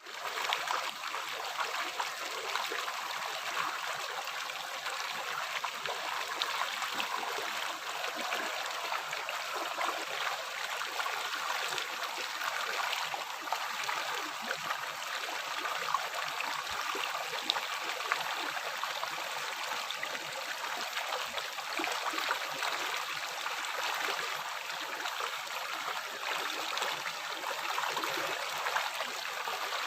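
River water flowing steadily, an even rushing with small gurgles and splashes.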